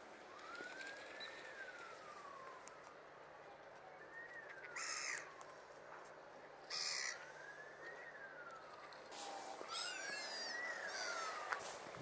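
A siren wailing, its pitch rising slowly and falling back over and over. Two short, loud, harsh bird calls cut in about five and seven seconds in, with a flurry of quick high bird calls near the end.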